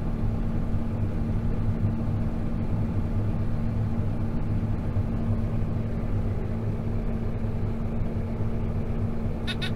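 Tractor engine running steadily at constant speed, driving a round baler. A short high-pitched sound comes near the end.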